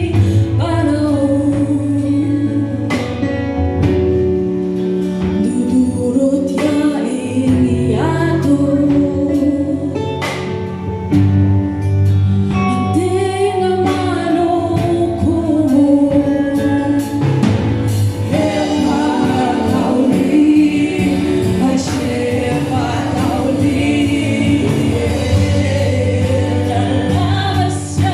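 Live band playing a song: drum kit, bass guitar, electric guitar and keyboard under women's lead vocals through the microphones, with regular drum hits throughout.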